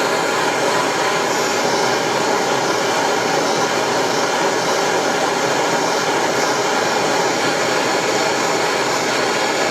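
Propane torch flame running steadily with an even hiss, heating a brass-to-stainless steel joint to silver-solder it. The torch is only just hot enough for the job.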